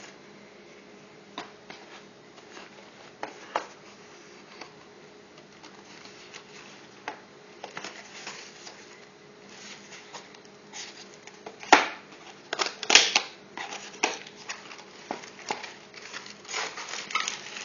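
Cardboard box and its plastic-wrapped accessories being handled and opened: scattered clicks, taps and rustles, with a louder flurry about twelve seconds in and more near the end.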